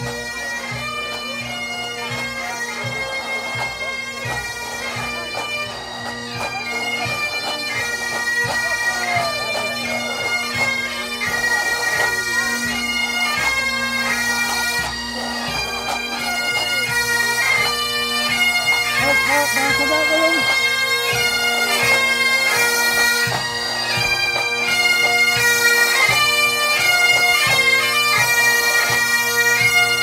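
Pipe band playing Highland bagpipes: a marching tune over the pipes' steady drones, with drums beating beneath, growing steadily louder as the band approaches.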